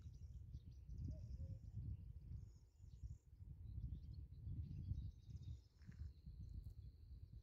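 Wind buffeting the microphone in uneven gusts, with faint birdsong chirping high above it. From about five seconds in a steady thin high note joins.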